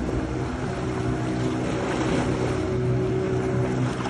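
A steady engine drone that holds one pitch throughout, over a wash of wind and water noise on the microphone.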